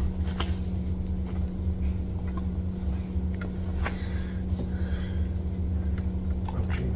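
Cardboard booster bundle box being handled and opened, a few faint scrapes and clicks, over a steady low hum.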